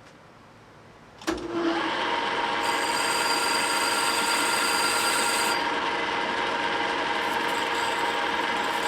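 Machine tool switched on with a click about a second in, then running steadily with a whine while machining a steel forklift rim, most likely a milling machine spindle set to the position just read off. A harsher, hissing edge comes in for a few seconds in the middle.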